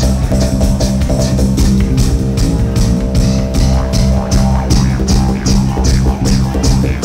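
Live psydub/psytrance music: a deep, steady bass drone under a regular beat of crisp high ticks, several a second.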